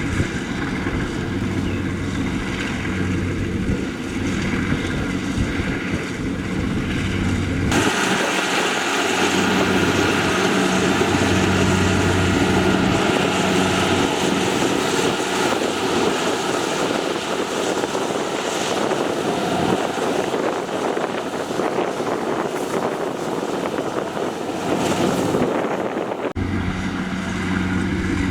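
Rice harvesting machinery at work, its engine running with a steady low hum. About eight seconds in the sound cuts abruptly to a louder, noisier machine sound with less of the low hum, and it cuts back to the steady hum near the end.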